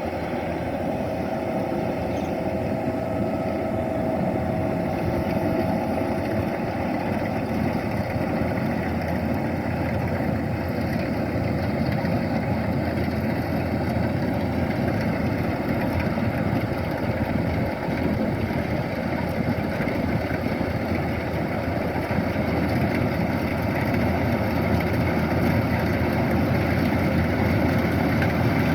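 Kubota DC-105X combine harvester's diesel engine and threshing machinery running steadily, growing a little louder near the end.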